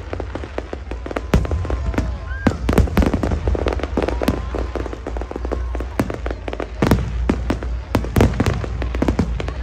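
Aerial fireworks bursting in rapid, irregular succession: many sharp bangs and crackles over a continuous low rumble.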